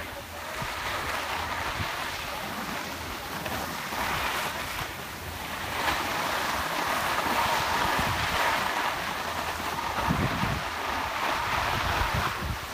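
Skis and a sit-ski sliding and scraping over groomed snow, with wind on the microphone; the steady hiss swells and eases as they turn.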